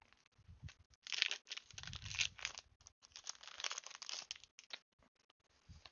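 Foil wrapper of a trading-card booster pack crinkling and tearing, in irregular rustling crackles that start about a second in and die away near the end.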